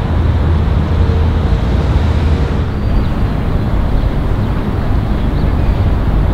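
Steady outdoor rumble with a hiss, like distant road traffic, with no distinct single events; the hiss shifts slightly about three seconds in.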